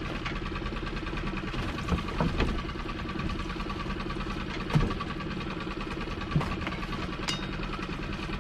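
A small fishing boat's engine running steadily at idle, with a few sharp knocks from gear being handled against the boat.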